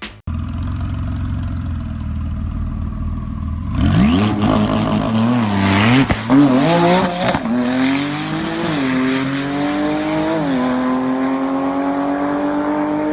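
A car engine idles with a steady low rumble, then about four seconds in it revs hard and launches with a burst of tyre noise. It accelerates with the pitch climbing and dropping back at each upshift, twice in the second half.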